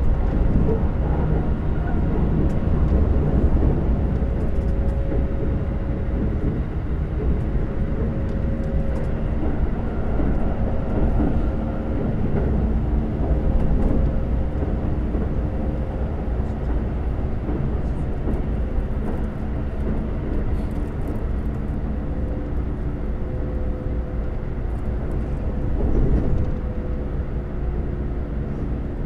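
Keikyu 2100-series electric train running along the line, heard inside the passenger car: a steady rumble of wheels on rail with the traction motors' hum as several steady tones above it.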